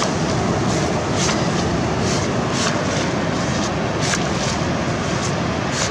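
Steady surf and wind noise on the microphone at the water's edge, with short splashy hisses of water several times.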